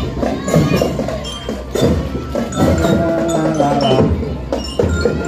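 Children's marching drum band playing: a rhythm of drum strikes with a metallic bell-lyre melody over it.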